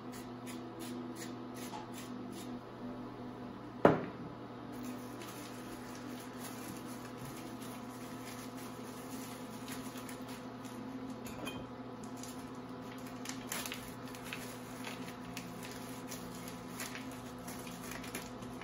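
Kitchen handling sounds at a cutting board: one sharp knock about four seconds in, then soft rustling and small clicks as a piece of salt pork is unwrapped and handled. A steady low hum runs underneath.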